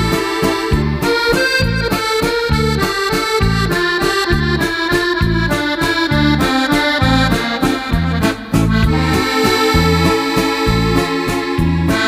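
Background music led by an accordion, with a steady, rhythmic bass.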